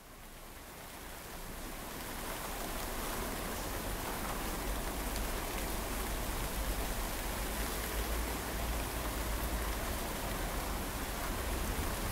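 Intro of an electronic music track: a steady rain-like noise texture with a low rumble underneath, fading in over the first few seconds and then holding level.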